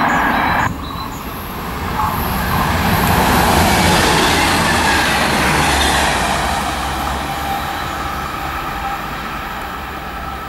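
SNCF TER diesel railcar passing at speed. The rumble and rail noise build over the first few seconds, peak about four seconds in, then fade steadily as the train draws away.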